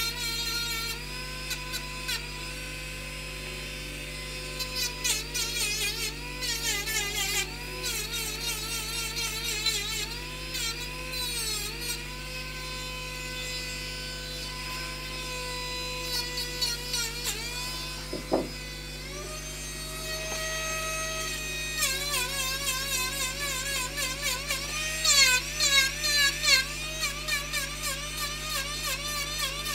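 Small handheld rotary carving tool with a burr grinding into wood, its whine dipping and wavering in pitch as the burr bites and eases off. One sharp knock about eighteen seconds in.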